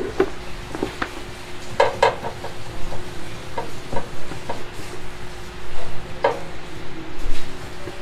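Scattered light clicks and taps of a screw and metal parts being fitted by hand while fastening the water heater into a front-loading washing machine's tub, over a faint steady hum.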